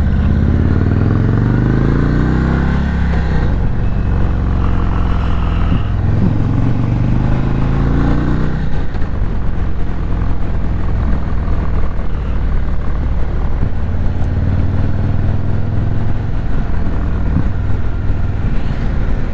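Indian Chief Bobber's 116 cubic-inch V-twin engine under way, rising in pitch twice in the first eight seconds or so as it accelerates, then running at a steady note at cruising speed.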